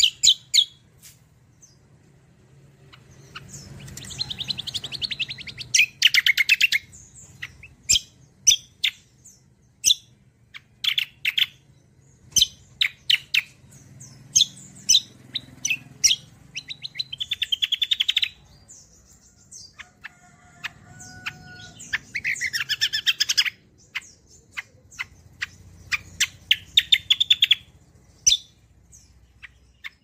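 A caged kecial kombo songbird singing hard: loud, sharp chirps repeated one after another, broken by about five fast rattling trills of a second or two each.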